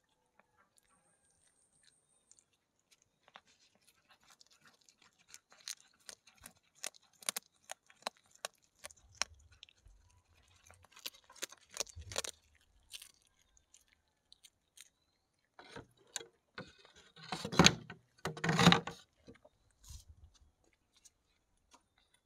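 A domestic cat chewing cooked fish close to the microphone: a run of quick wet clicks and small crunches. A few much louder bumps or crunches come about three-quarters of the way through.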